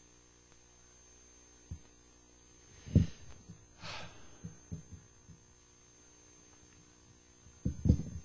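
Steady electrical mains hum with a faint high whine, broken by a low thump about three seconds in, a short hiss just after it, and a scatter of fainter soft knocks.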